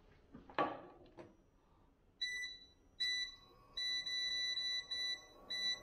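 A stainless steel saucepan is set down on a glass induction cooktop with a clank and a lighter knock. Then the cooktop's control panel beeps five times as its touch buttons are pressed: steady electronic beeps, the middle one held longest.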